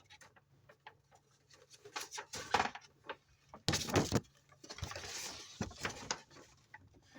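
Trading-card box packaging and paper being handled on a table: scattered light taps and clicks, a short sharp rustle about four seconds in, then a softer, longer rustle.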